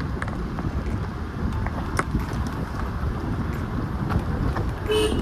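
Steady low rumble of a moving vehicle with wind buffeting the microphone, with a few light clicks. A brief pitched tone sounds just before the end.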